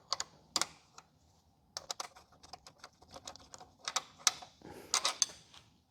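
Light metallic clicking as a motorcycle engine bolt is undone with an 8 mm hex tool: two or three clicks at the start, then a quick, irregular run of clicks.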